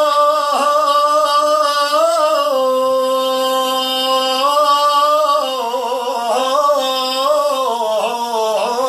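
A man singing unaccompanied, holding one long sung vowel of Arabic folk verse: the pitch stays steady for about five seconds, then winds up and down through ornamented turns.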